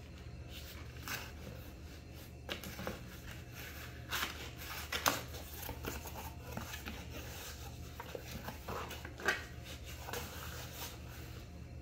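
Cardboard shipping box being opened by hand: flaps pulled back and cardboard rustling and scraping against the shoebox inside, with a few sharper knocks, the loudest about five seconds in and just after nine seconds.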